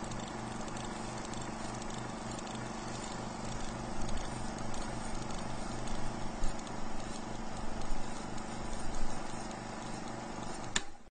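Old film projector running: a steady mechanical whir with a fast, even clatter, getting louder and more uneven from about four seconds in.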